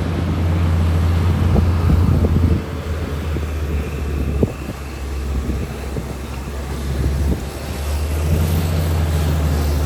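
Heavy diesel engine of earthmoving machinery running with a deep, steady drone that eases off and picks up again as the load changes, with scattered knocks and clatter.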